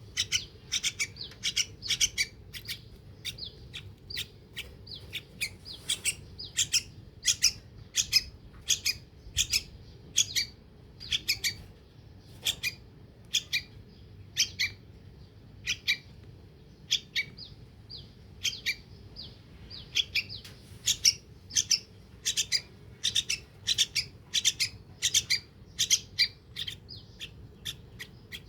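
Yellow-vented bulbul chick giving short, high chirps over and over, a few a second in clusters: begging calls while it is hand-fed.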